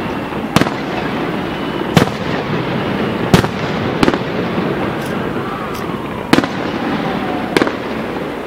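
Aerial firework shells bursting: about six sharp bangs at uneven intervals, over steady background noise.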